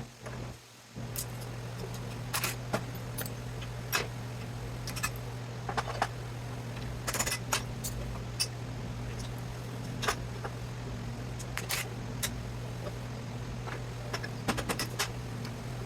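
Metal parts of a scrapped electrical panel clinking and clicking as they are handled and pulled apart, over a steady low hum.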